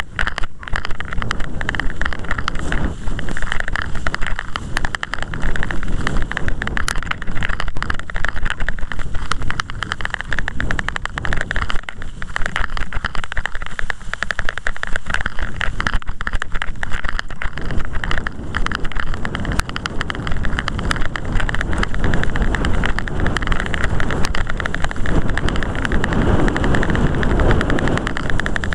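Wind buffeting the microphone over a continuous rumble and many small knocks and rattles from a camera carried along on a bicycle ride over bumpy, leaf-covered forest ground.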